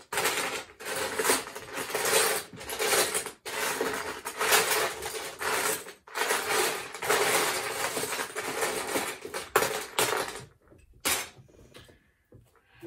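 Loose Lego bricks clattering and rattling as hands rummage through a clear plastic storage tub of pieces. The rattling stops about ten and a half seconds in, leaving a few separate clicks near the end.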